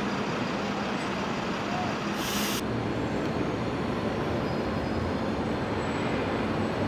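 Steady city street noise of road traffic by a tram stop, with a Metrolink Bombardier M5000 tram standing at the platform. A short burst of hiss comes about two seconds in.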